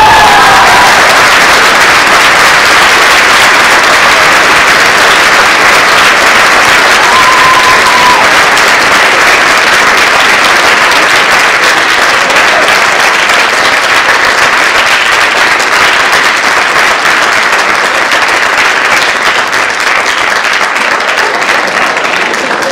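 Audience applauding loudly and steadily, slowly tapering off.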